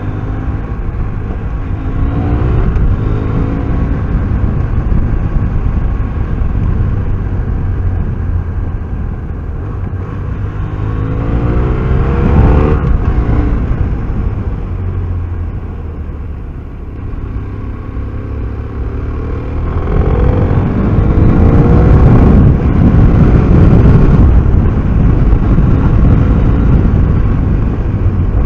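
BMW F800R parallel-twin engine under way, its revs climbing and dropping three times as it accelerates and shifts through curves, over a steady low rumble. It is loudest in the last third.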